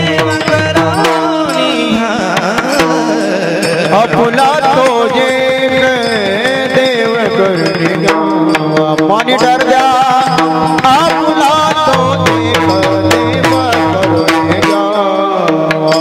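Devotional kirtan music: a pakhawaj drum beating and small brass taal hand cymbals clashing in a steady rhythm under a sliding melody line.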